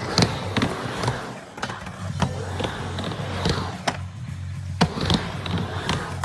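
Skateboard riding a halfpipe: the wheels rumble as it rolls through the transitions, with several sharp clacks of the trucks and board hitting the coping and deck. Music plays underneath.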